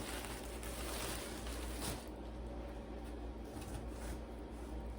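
Faint rustling of packaging and clothing being handled, with a few soft crinkles in the first two seconds, over a low steady hum.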